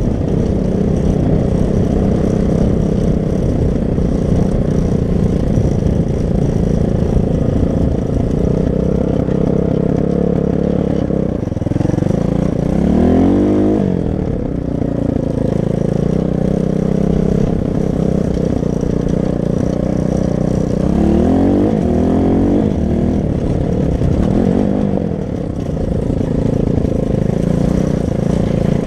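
Loncin 250 cc pit bike's single-cylinder four-stroke engine running during a ride, with a steady engine note. The revs rise and fall about twelve seconds in and again about twenty-one seconds in.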